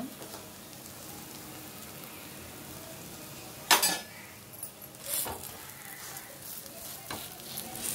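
Pesarattu sizzling steadily in oil on a hot, thick griddle. About four seconds in comes a sharp clink, the loudest sound, then lighter scrapes and knocks as a spatula works under the crêpe against the pan.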